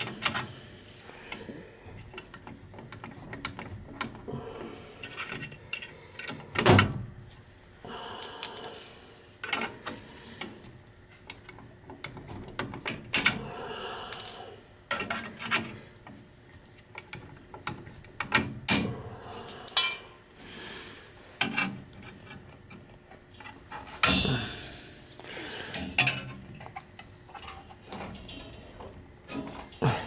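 Hand tools and metal parts handled at an open boiler control while it is being rewired: scattered sharp metallic clicks and clinks with short rustling handling noises, and louder knocks about seven seconds in and again about 24 seconds in.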